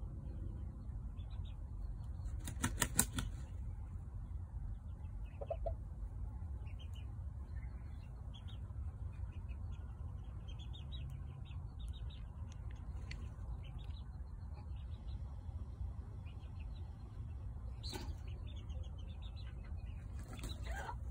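Serama rooster flapping its wings in one quick burst of about seven beats, about three seconds in. Faint chirping of small birds and a low steady rumble run underneath.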